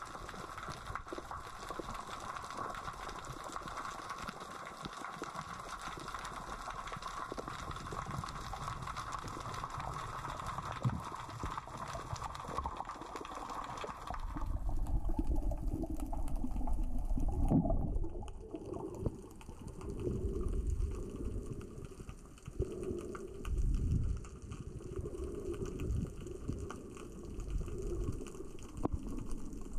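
Underwater sound of small rocks rolling across the sea floor in the current: a steady crackling hiss. About 14 seconds in it gives way to uneven low surges of moving water as the camera nears the surface.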